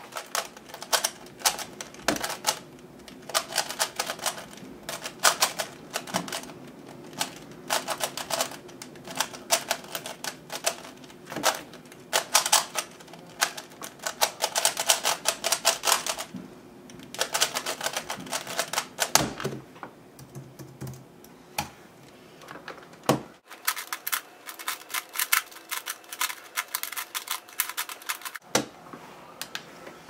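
FII 3x3 speedcube, lubricated with shock oil, clicking rapidly in dense runs as its layers are turned fast one-handed during a timed solve. The turning stops with a knock about nineteen seconds in as the cube is set down and the timer stopped. A few seconds later there is another run of rapid turning clicks that ends with a knock.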